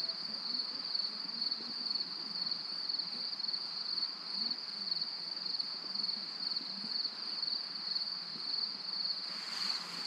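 Crickets trilling in a steady, high-pitched chorus, with a faint hiss of outdoor background noise beneath.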